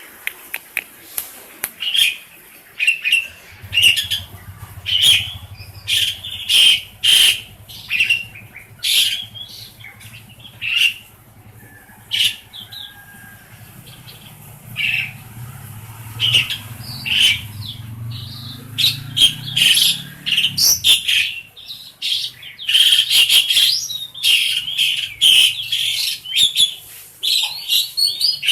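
Asian pied starling (jalak suren) calling nonstop in a rapid, chattering run of short varied notes and clicks, in the busy 'receh' style. A low steady hum runs underneath for much of the middle.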